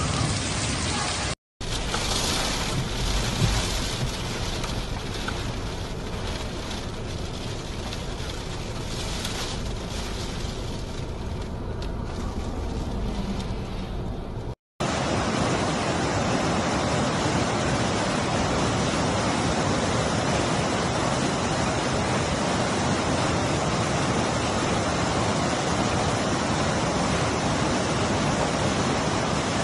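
Rain falling, then after a cut about a second and a half in, rain and road noise inside a moving car. About halfway through, another cut brings a muddy flash flood rushing steadily through a rocky wadi.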